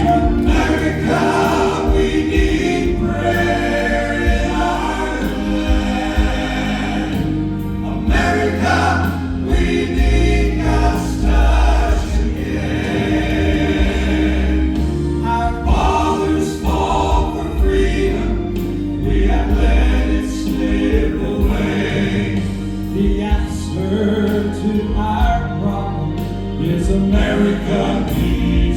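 Southern gospel quartet singing in harmony over instrumental backing, a continuous gospel song.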